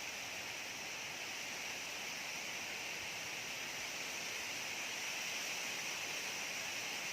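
Steady rain falling: an even hiss that holds at the same level throughout.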